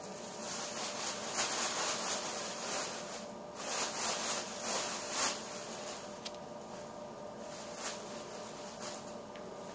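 Close rubbing and scuffling at the microphone as a ferret noses at the camera, in two bursts of rustling in the first half. A single sharp click comes after them, and fainter rubbing follows over a faint steady hum.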